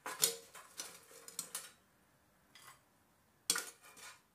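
Metal tongs clinking and scraping against an air fryer basket as potato wedges are lifted out and served onto a plate: a string of short clatters, the loudest about three and a half seconds in.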